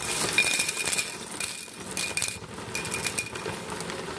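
Quick light clinking and rattling of small hard objects handled close by, with a thin high whine that cuts in and out.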